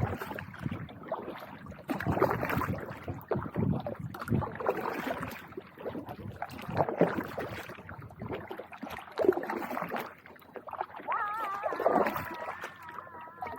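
Kayak paddle strokes dipping into the river, with water splashing and swishing every couple of seconds. A short, high, wavering pitched sound comes in near the end.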